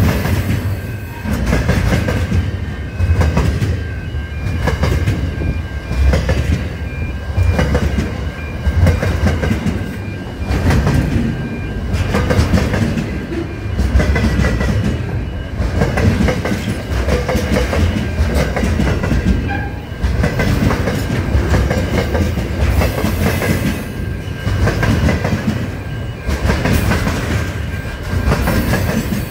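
Freight train of container wagons passing close by: a steady rumble of steel wheels on the rails with rhythmic clickety-clack, swelling about every two seconds as each wagon goes by. A faint, steady high whine from the wheels runs underneath.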